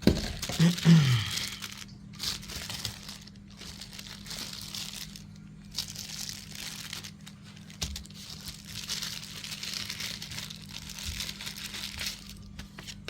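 Packaging being handled and unwrapped by hand, crinkling and rustling in uneven bursts, loudest in the first second.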